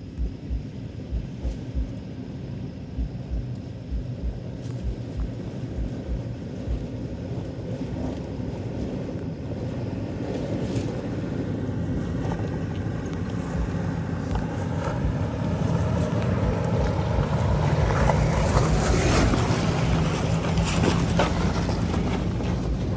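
Toyota Land Cruiser's 5.7-litre V8 running at low revs as it crawls over a rocky trail. It gets louder as it comes up close to the camera, and tyres crunch and click over loose rocks and gravel near the end. Wind buffets the microphone with low thumps early on.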